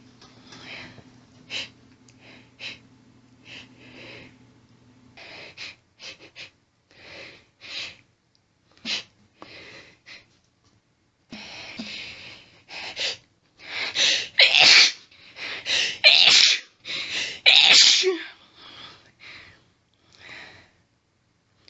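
A woman's rapid sneezing fit: many short, sharp sneezes in quick succession with hitching breaths between them. The loudest, most forceful run of sneezes comes about two-thirds of the way through.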